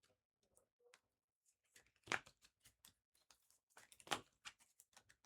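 Trading cards being handled and slid through the hands, with faint rustles and clicks and two sharper card snaps, about two seconds apart.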